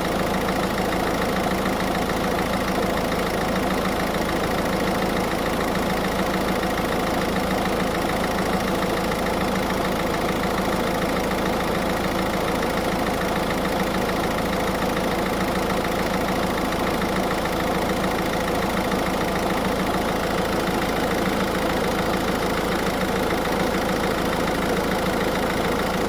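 Car engine idling steadily with an even hum, while the air-conditioning system is being recharged with refrigerant through the low-pressure port.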